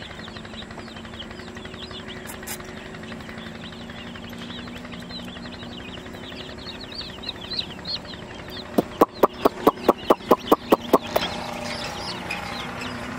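Baby chicks peeping continuously with many short high cheeps. From about 9 s to 11 s a rapid run of about a dozen loud sharp clicks, five or six a second, cuts through.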